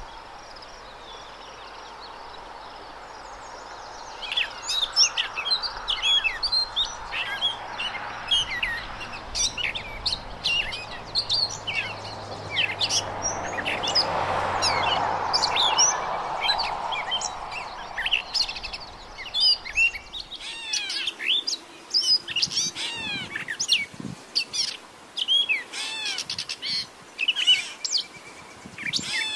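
Gray catbird singing its long, rambling song: a quick jumble of varied short squeaky, whistled and chirping notes with brief gaps, starting about four seconds in over a background hiss.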